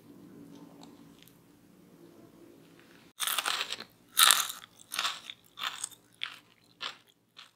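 Crunchy bites and chewing of crispy fried grated potato topped with melted cheddar. The crunching starts about three seconds in, is loudest on the second bite, then trails off in fainter, more widely spaced crunches.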